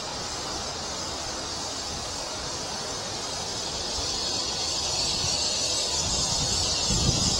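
A steady, high-pitched insect chorus, with wind buffeting the microphone as a low, uneven rumble that grows over the last few seconds.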